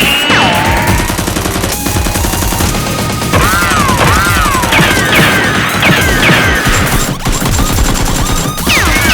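Rapid, sustained gunfire sound effects, dense volleys of shots, mixed with repeated short falling whistles, over background music.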